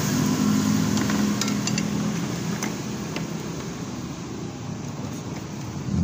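Steady whirring mechanical background noise with a few light metallic clicks, about a second and a half in and again a second later, from the engine parts and bolts being handled.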